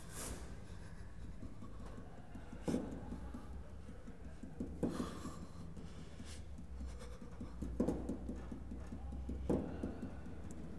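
A man breathing heavily in ragged gasps, five breaths a couple of seconds apart, over a low steady hum.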